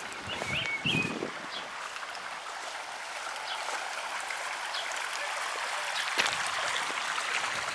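Running water splashing steadily, a hiss that grows a little louder toward the end. A couple of short chirps about half a second in.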